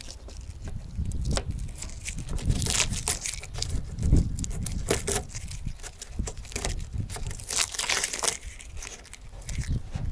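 Masking tape being peeled off a car's painted hood, with paper crinkling, in irregular rustling, tearing bursts that are loudest about three seconds in and again about eight seconds in.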